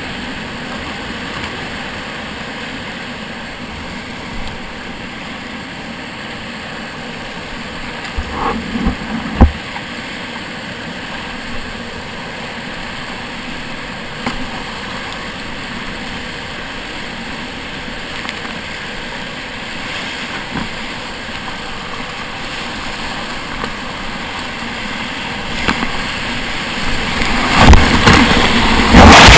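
Whitewater rapids rushing steadily around a kayak, with a couple of sharp knocks about eight and nine seconds in. Near the end the water gets much louder, splashing hard as the kayak's bow drops into the rapid's white water.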